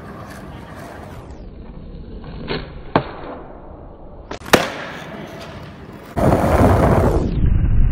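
Skateboard wheels rolling on asphalt, with sharp clacks of the board popping and landing a trick, the loudest crack about halfway through. Just after six seconds a much louder, dense noise cuts in suddenly.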